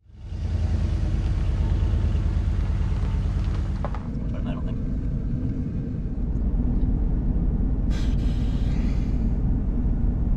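Steady low rumble of a camper van running, heard from inside the cab, with a hiss over it that thins out about four seconds in.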